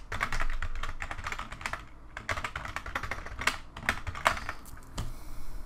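Typing on a computer keyboard: quick runs of keystrokes, a brief pause about two seconds in, then a few single, sharper key presses near the end.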